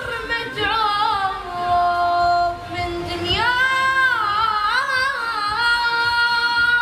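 A high-pitched voice singing long held notes that bend and waver in pitch, with a short break about two and a half seconds in.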